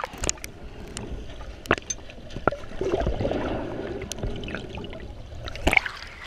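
Water gurgling and bubbling as heard by a camera held underwater, with scattered sharp clicks and knocks. A louder splash comes near the end as the camera breaks the surface.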